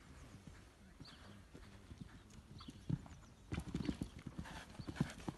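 Hoofbeats of a pony stallion cantering on an arena's sand footing, faint at first, then loud and close from about three and a half seconds in.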